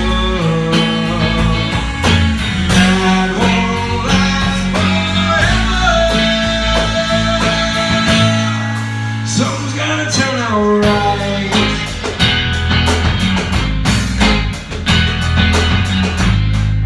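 Live acoustic rock band playing an instrumental passage: guitars with a lead line bending in pitch over bass and a steady beat. The bass drops out for a moment about halfway through, then comes back in.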